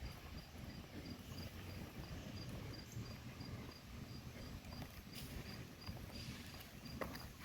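An insect chirping steadily, a short high chirp about three times a second, over a faint low rumble.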